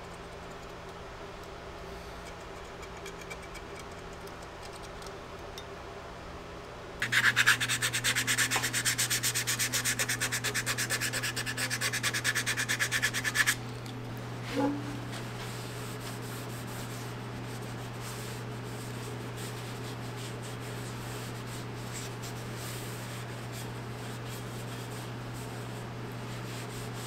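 Sanding during the cleaver's restoration: about a quarter of the way in, a steady electric hum starts. Over it, a loud abrasive rasping of metal or wood against sandpaper runs for about six seconds and then stops abruptly, leaving the hum running on its own.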